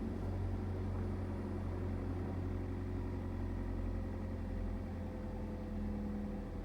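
Chevy Equinox engine idling steadily, heard from inside the cabin.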